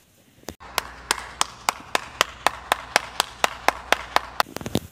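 One person clapping hands at a steady pace, about four claps a second, with a quicker cluster of claps near the end.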